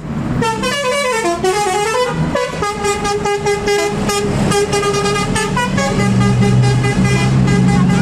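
A passing coach's telolet horn, a set of tuned air horns, playing a quick melody of stepped pitches with fast pulsing notes in the middle. A low steady drone joins from about six seconds in.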